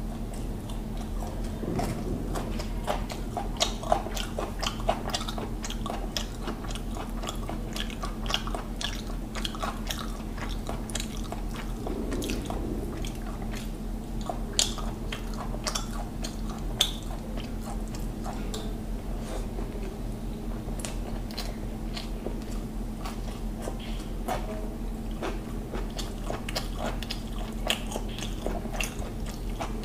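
Close-miked chewing of mouthfuls of mutton biryani, with frequent wet mouth clicks and smacks at an uneven pace, over a steady low hum.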